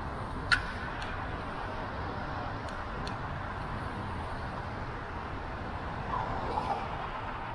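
Steady street and traffic noise with a low rush, heard from a bicycle riding through city streets. A few light clicks, the sharpest about half a second in.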